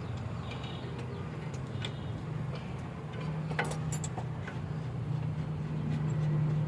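A steady low machine hum with a few light, sharp clicks and clinks scattered through it, like tools and metal parts being handled during brake work.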